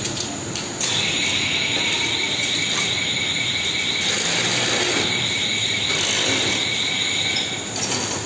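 Cable-coiling machine spinning its rod, giving a steady high-pitched whine that starts about a second in and stops near the end, over steady workshop noise.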